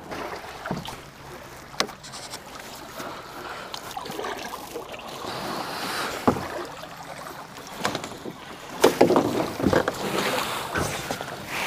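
Double-bladed kayak paddle dipping and splashing through the water stroke by stroke, with a few sharp knocks of the paddle against the kayak. The splashing is louder about nine seconds in, as the kayak comes in against the rocky shore.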